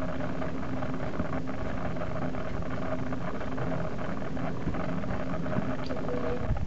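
Steady background hum and hiss of room noise with a faint steady tone in it, unchanging throughout.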